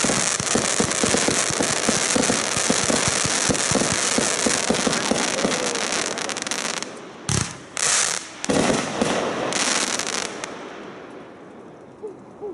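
Aerial fireworks bursting overhead: a dense run of crackling and popping, then a sharp bang about seven seconds in, two more bursts of crackle, and a fade near the end.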